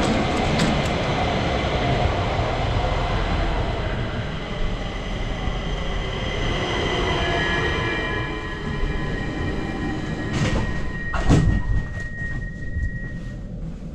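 Stockholm metro train standing at an underground platform with its doors open: a steady mechanical rumble, with a high steady whine that sets in about halfway and stops near the end. Two sharp knocks come about three-quarters through.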